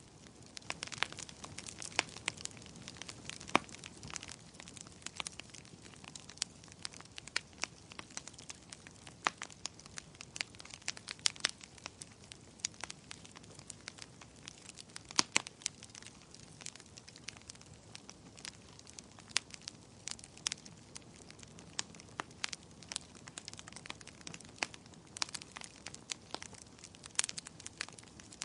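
Wood fire crackling in a fireplace: irregular sharp pops and snaps, several a second, over a soft steady hiss of burning logs.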